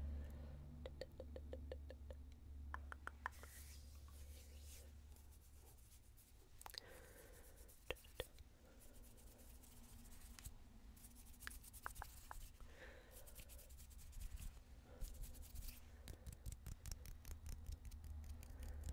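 Faint close-up finger and fingernail sounds: fingers rubbing and clicking together near the microphone in quick runs of small clicks and scratchy rustles, over a steady low hum.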